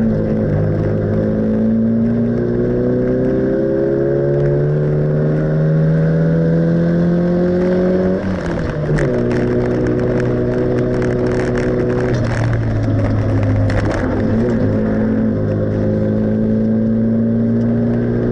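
Classic Mini's four-cylinder engine heard from inside the cabin under hard acceleration on track. Revs climb steadily for about eight seconds, then drop sharply at a gear change. The note then holds fairly level with two brief easings and climbs again near the end.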